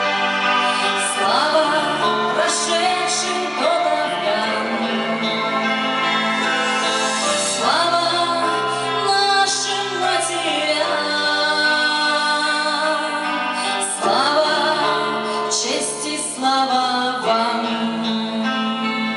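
A song performed live: a singer's held, gliding notes over steady instrumental accompaniment.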